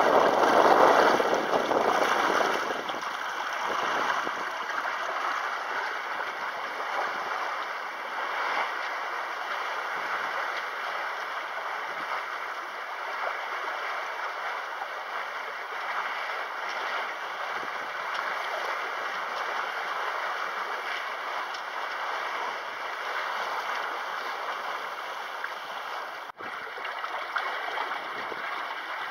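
Water rushing and splashing along the hull of a 4-metre wooden microcruiser sailing through choppy water. It is a steady hiss of water without any engine, and it is louder for the first three seconds.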